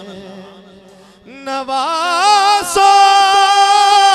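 Unaccompanied naat singing by a male voice. A line ends softly, and about a second and a half in a loud, long held note rises in pitch and then stays steady, with no words.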